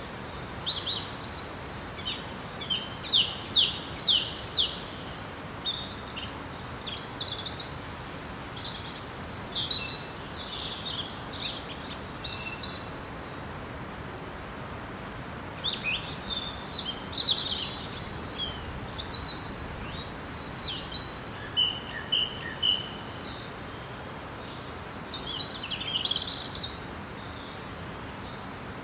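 Several songbirds calling and singing in a daytime forest, with runs of quick high chirps and trills, over a steady background hiss.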